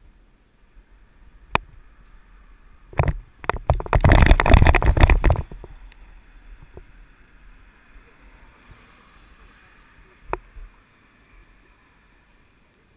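Mountain bike jolting down dirt steps: a few sharp knocks, then about two seconds of loud rattling clatter, easing to quiet rolling, with a single click near the end.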